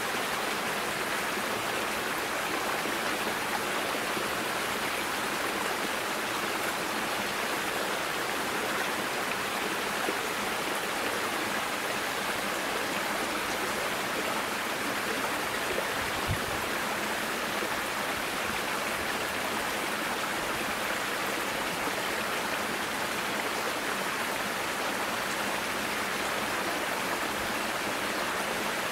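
Small brook running over rocks: a steady rush of water.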